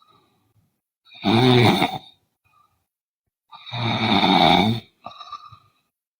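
A sleeping woman snoring: two loud, rasping snores about two and a half seconds apart, the first about a second in, then a softer short breath just after the second.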